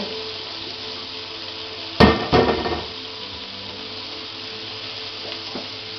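Chopped onions, pineapple, tomatoes and chili sizzling in hot olive oil in a frying pan, with a sharp knock about two seconds in and a smaller one just after.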